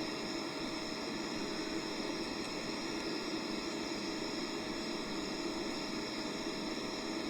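Steady machine hum and hiss from a CNC lathe with its fans running, with a faint steady whine.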